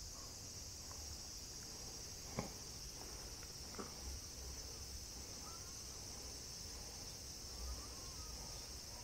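Steady, high-pitched chorus of insects chirring in the grass, with a couple of faint ticks.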